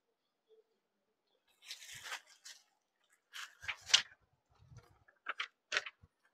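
Banarasi sarees being handled and laid on a counter: cloth rustling in a few short bursts, with a couple of soft thuds.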